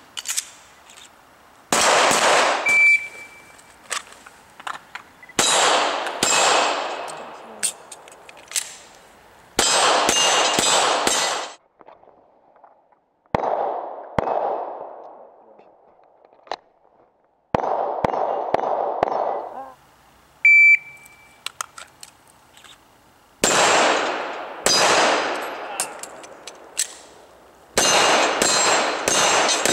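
Pistol fire in about seven separate strings of quick shots, each shot cracking sharply and echoing off the range. Twice a hit steel target rings with a short, high metallic ding.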